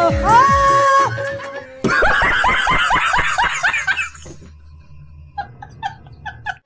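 A woman singing a long held note, cut off about two seconds in by a man's loud, rapid laughter, which drops to softer broken chuckles near the end.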